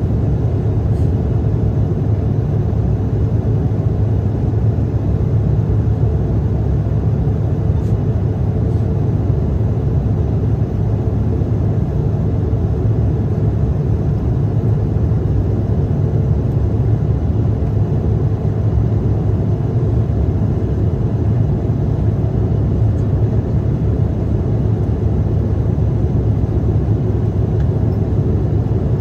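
Cabin noise of a CRJ-700 regional jet in flight: a steady, loud low rumble of airflow and its rear-mounted General Electric CF34 turbofans, unchanging throughout.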